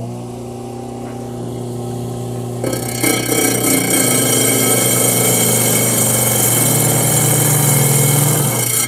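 Hi-Tech lapidary trim saw running at about 3,250 RPM with a steady motor hum. About three seconds in, a silicon carbide dressing stick is pushed into the spinning diamond blade, and a loud, hissing grind takes over. The grind stops abruptly near the end as the stick comes off the blade.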